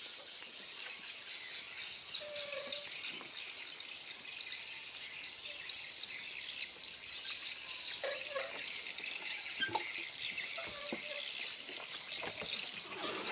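A steady, high-pitched insect chorus, with a few short bird chirps.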